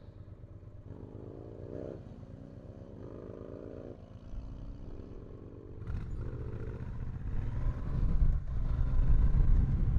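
Triumph T120 Bonneville's parallel-twin engine, catalytic converter removed, running low at a junction for about six seconds, then louder as the bike pulls away and accelerates.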